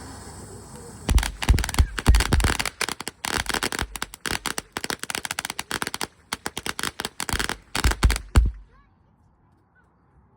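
Fireworks going off in a fast, loud string of sharp bangs and crackles, several a second. It starts about a second in and cuts off suddenly near the end.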